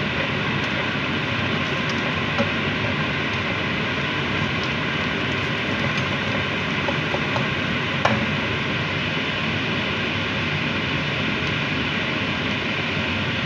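Sliced onions sizzling steadily in hot oil in a nonstick wok as they fry toward golden brown, with a couple of sharp clicks of the spatula against the pan as they are stirred.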